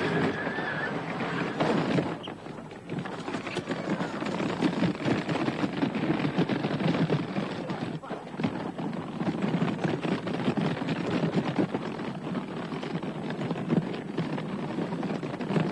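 Heavy wheeled road case rolled down a truck's loading ramp and shoved over rough dirt, its castors rattling and clattering without a break. A brief high squeal sounds right at the start.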